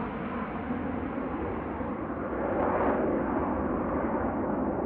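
Jet noise from a formation of Northrop F-5E Tiger II fighters' twin turbojets, a steady rumbling roar. It swells a little just past halfway, and the sound grows slowly duller as the jets climb away.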